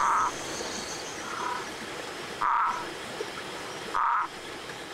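A frog calling: three loud, short calls about two seconds apart, its vocal sac blown up with each one, with fainter calls of the same kind in between.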